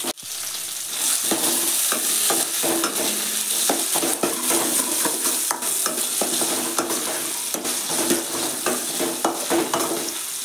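Chopped carrots and green beans sizzling in hot oil in a stainless steel pan as they go in, then stirred with a steel ladle that scrapes and knocks against the pan over a steady sizzle.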